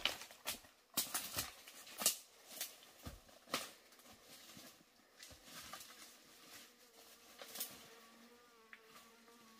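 Footsteps crunching through dry leaves and twigs on the forest floor, about two a second, thinning out as the walker moves away. Near the end an insect starts buzzing steadily close by.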